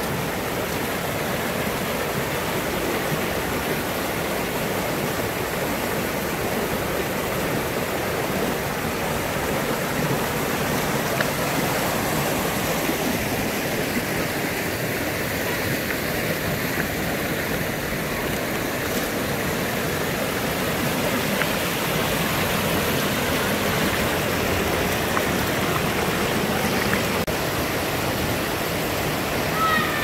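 Mountain stream rushing over boulders in small rapids, a steady full rush of water.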